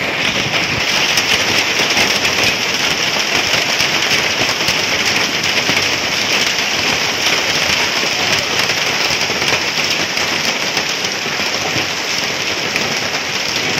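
Hail and heavy rain pelting down: a dense, steady hiss thick with small sharp hits of hailstones striking the ground and surfaces.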